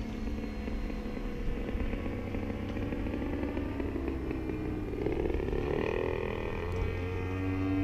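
Small aircraft engine running steadily, rising a little in pitch and loudness about five seconds in.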